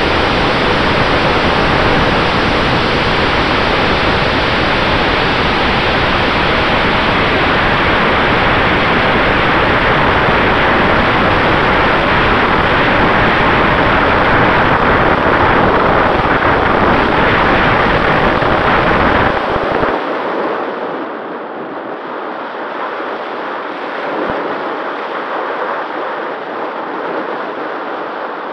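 Airflow buffeting the microphone of a camera mounted on a fast-flying RC glider, heard as a loud, steady rush. About twenty seconds in it drops sharply and loses its low rumble, leaving a softer hiss with a faint steady tone underneath.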